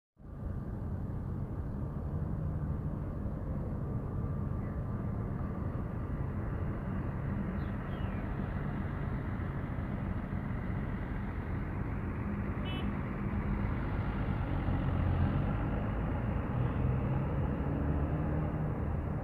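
Diesel engine of a large tour coach running steadily as the bus moves past close by and pulls away, its low engine note growing somewhat louder near the end.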